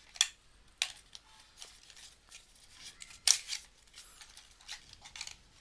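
Small product box being opened by hand: scattered sharp clicks and scrapes of cardboard and packaging, the loudest about three seconds in.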